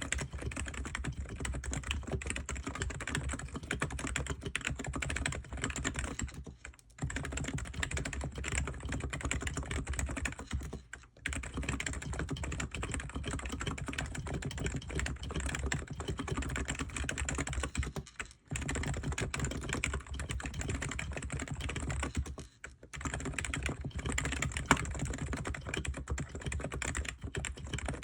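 ABKO K995P V3 electro-capacitive (non-contact) keyboard being typed on fast and continuously, a soft clacky, scratchy key sound, stopping briefly four times.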